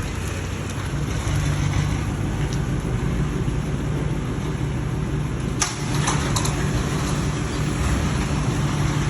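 Steady low mechanical hum, with a sharp click a little past halfway and a couple of fainter clicks just after.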